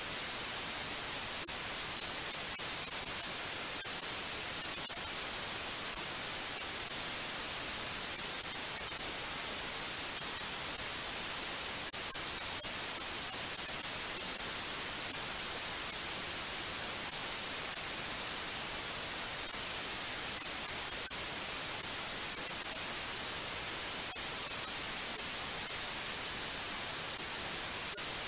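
Steady white noise: an even, unchanging hiss, strongest in the treble.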